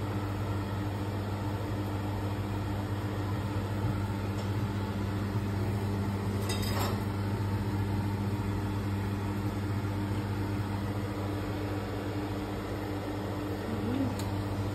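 Steady low hum of a running kitchen appliance motor at an unchanging pitch, with a short scraping noise about six and a half seconds in.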